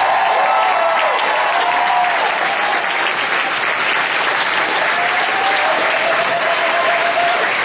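A large audience applauding loudly and steadily, with a few whoops and shouts mixed in.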